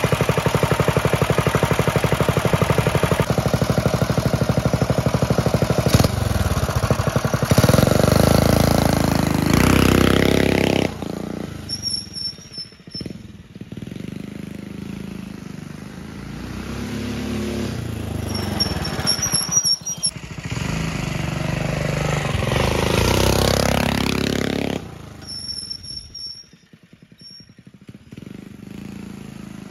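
Coleman CT200U-EX mini bike's modified single-cylinder engine running close by, warm after a start, with a rev that rises and falls about eight seconds in. After about eleven seconds it is heard from further off and fainter, revving up and down as the bike is ridden.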